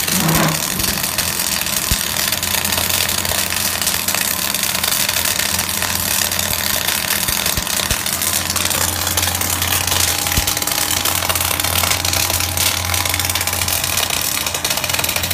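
MIG welding arc on steel, crackling and hissing steadily without a break, with a steady low hum underneath.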